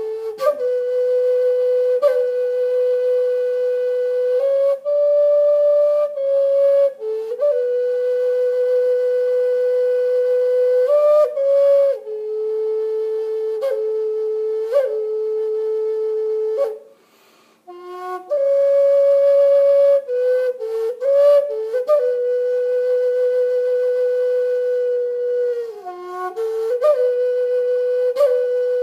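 Solo Native American-style flute playing a slow melody of long held notes, with quick grace-note flicks where the notes change and a short breath break a little past halfway.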